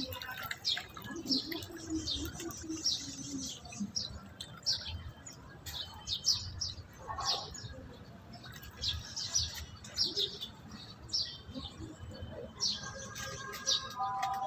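Birds chirping: many short, high calls that fall in pitch, repeated every half-second to a second.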